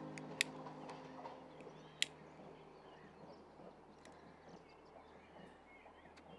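A cigarette lighter clicked twice, two sharp clicks about a second and a half apart, over quiet outdoor ambience with faint bird chirps near the end.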